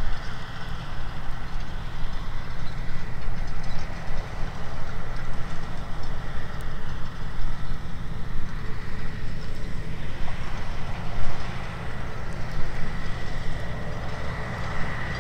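Claas Xerion 12.650 tracked tractor running steadily under load, with the rumble and rattle of a Kelly chain disc harrow working the soil. A thin, steady high whine sits over it and grows stronger near the end.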